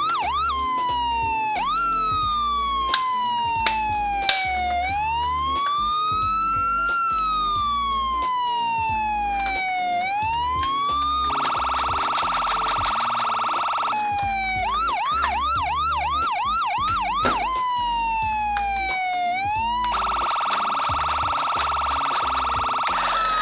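Toy ambulance minicar's electronic siren cycling through its tones: a slow wail sweeping down and up, quick yelp chirps, and twice a harsh steady buzzing horn tone of about three seconds. A few light clicks fall around three to four seconds in.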